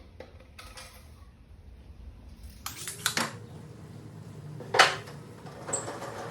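Sharp knocks and clatters of hard objects being handled: a short cluster about halfway through and one loud knock later on.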